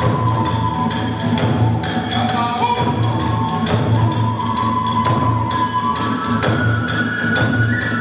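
Kagura hayashi accompanying the dance: a bamboo flute holds long shrill notes, dipping in the middle and climbing higher near the end, over a fast steady beat of taiko drums and small hand cymbals.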